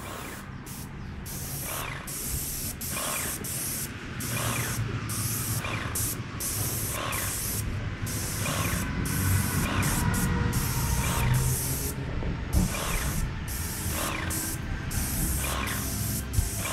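Spray gun hissing as finish is sprayed onto wooden parts, in passes that break off briefly and resume again and again as the trigger is released and pulled.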